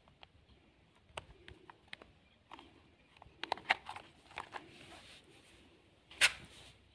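Plastic clicks and rattles of a toy RC stunt car's battery cover being fitted over its AA batteries and pressed shut, with a cluster of sharper clicks midway and one loudest click near the end.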